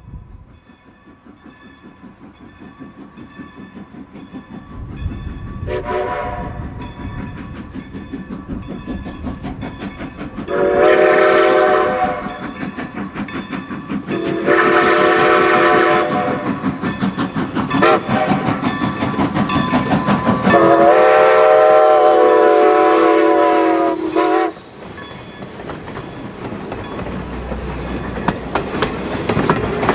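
Baldwin 2-10-0 Decapod steam locomotive working away from a start, its exhaust beats growing louder and quicker, with one short whistle toot about six seconds in. Its chime steam whistle then sounds long, long, short, long, the signal for a grade crossing. Near the end the passenger coaches roll past, wheels clicking over the rail joints.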